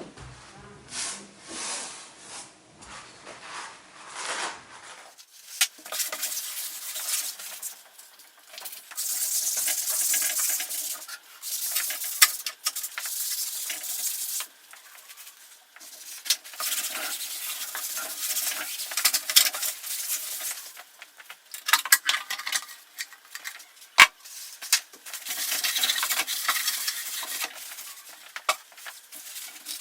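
Brushing and rubbing on a typewriter: irregular stretches of scraping hiss with scattered light clicks and taps, from cleaning its parts.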